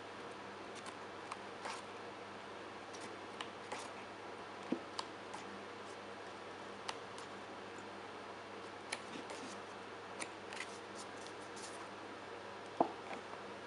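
Pages of an album photobook being turned by hand, making soft paper rustles and small scattered clicks over a steady background hiss, with one sharper tap near the end.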